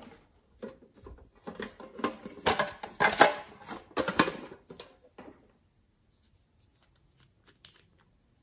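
Hands handling a plastic toy container: a run of crackling clicks and rustles that dies away after about five seconds. A few faint ticks follow near the end as a small yellow bottle is opened and its brush is drawn out.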